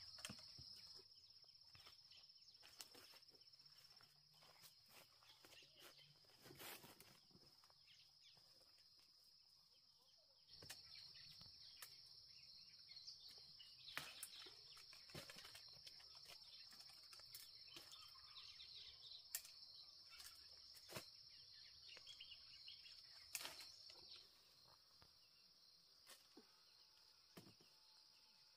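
Faint outdoor ambience: a steady, high-pitched insect buzz that stops about a second in, starts again around ten seconds in and stops again near the end, with scattered small clicks and rustles.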